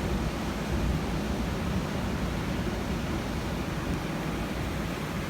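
Rough surf breaking on the beach ahead of a hurricane, with wind buffeting the microphone in a steady low rumble.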